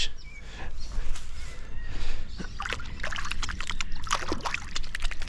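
Water splashing and sloshing in irregular bursts, heaviest about three seconds in and again about four seconds in.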